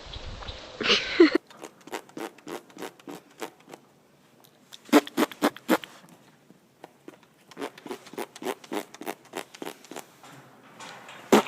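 A horse flapping and smacking its lips, making runs of quick popping clicks in irregular bursts.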